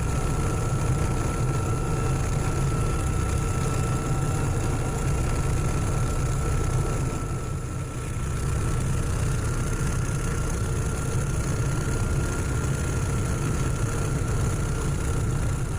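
Ship's engine running steadily at idle: a low drone with a thin, steady whine above it.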